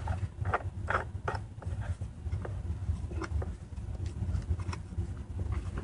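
Wheel nut being tightened onto a toy ride-on car's axle with a small wrench: a quick run of metallic clicks in the first second and a half, then a few scattered ticks, over a low steady hum.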